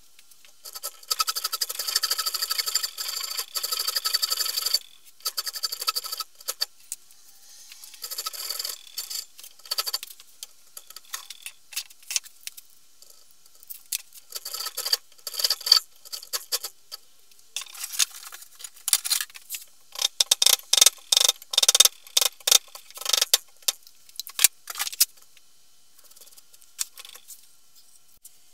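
A file rasping across the end grain of a wooden axe handle and its wedge in the axe eye, filing them flush with the head. It comes in runs of quick scraping strokes with short pauses between them.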